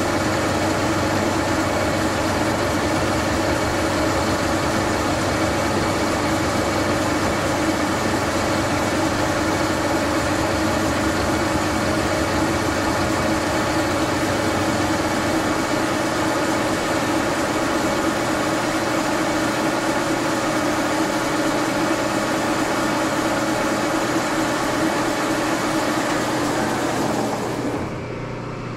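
Old vertical milling machine running steadily with its cutter drilling into a T-slot nut held in the vise, a dense mechanical din with a steady hum. About 27 seconds in the sound drops and loses its upper range as the cut ends.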